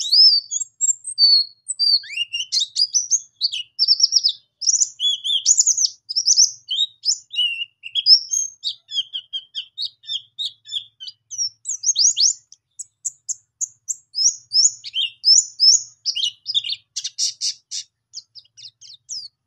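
Caged white-eye (pleci) singing a long, unbroken rolling song of rapid, high-pitched chirps, slurred notes and trills. This is the continuous song fanciers call ngerol. A run of very fast, rattling notes comes about three-quarters of the way through.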